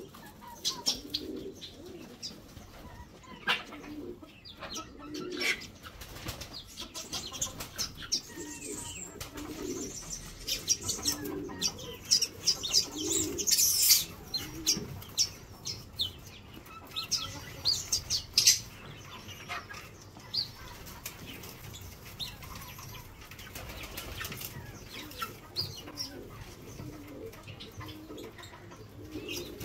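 Caged pigeons cooing in repeated low notes, mostly in the first half. Short flutters and sharp high chirps from the aviary birds are scattered throughout, loudest in a cluster about halfway through.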